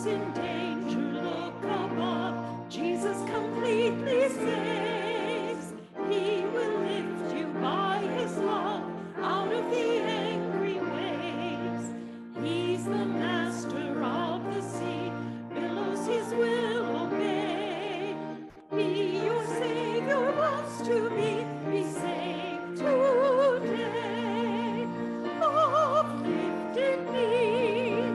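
A solo voice singing in a classical style with a wide vibrato, over held accompaniment chords that change every few seconds. There are brief pauses between phrases.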